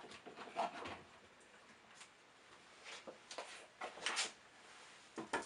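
Faint, irregular scrapes and crackles of black pepper being put onto sole fillets on tin foil, in a few short clusters that are loudest past the middle.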